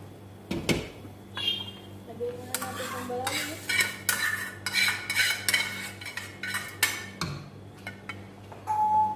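Metal cookware clattering: a pot lid, a pan and a metal spoon knocking and clinking against each other and the pot rim in a quick irregular run. A steady low hum runs underneath.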